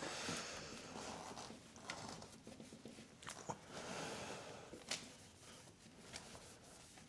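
Faint rubbing of a cloth wiping and buffing a bicycle frame, in soft swells, with a few light clicks and knocks.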